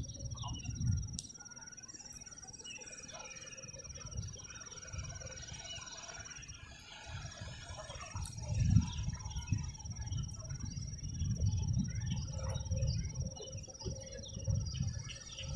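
Rural outdoor ambience: scattered bird chirps over a steady high-pitched insect trill that breaks off for about a second near the middle, with low rumbling wind on the microphone that grows stronger after about eight seconds.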